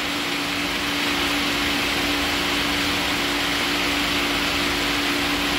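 Laars Mightytherm gas pool heater running with its burner lit: a steady rushing noise with a low, even hum underneath.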